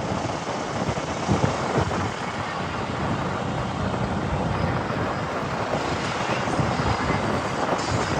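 A vehicle running on the move, with steady rushing noise and low rumble from wind and road.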